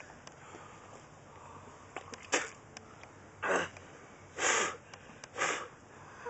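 A young man hacking and forcing out breath, his throat irritated by a swallowed spoonful of ground cinnamon. There is one short burst, then three harsh ones about a second apart.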